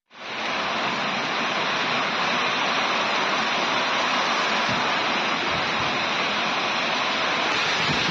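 A storm of heavy rain and strong wind: a steady, dense rushing hiss that cuts in abruptly at the start.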